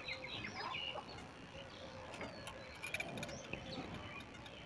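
A few faint light metallic clicks of a feeler gauge and hand tools at a diesel engine's valve rocker arms while the exhaust valve clearance is set to 0.40 mm. Birds chirp faintly in the background.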